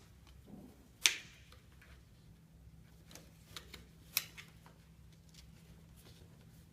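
Handling clicks and knocks from an M4 carbine being put back together: a sharp click about a second in, fainter knocks, then a second sharp click about three seconds later, over a faint steady hum.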